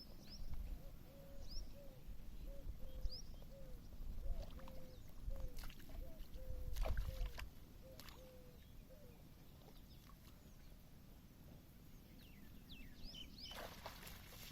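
Faint outdoor ambience: an animal's short call repeated a few times a second for the first nine seconds or so, with thin high bird chirps now and then and a low rumble from wind or handling that dies away after about seven seconds.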